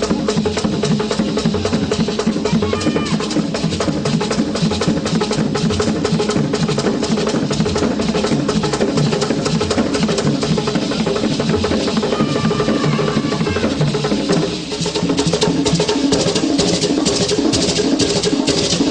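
Traditional Baganda dance drumming: several drums struck in a fast, dense rhythm, with faint singing over it. The music dips briefly about two-thirds of the way through, then carries on.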